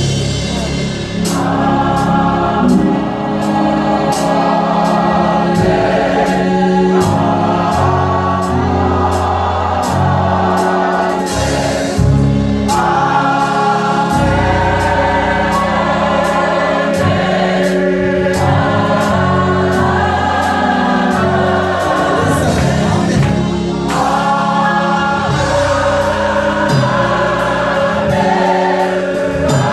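Gospel choir singing in full harmony, with a band behind it and drums keeping a steady beat.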